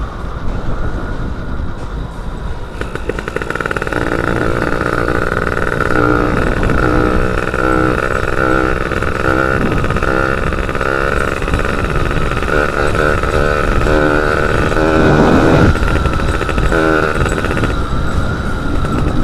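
Yamaha F1ZR two-stroke motorcycle engine running while being ridden, with wind noise over the microphone.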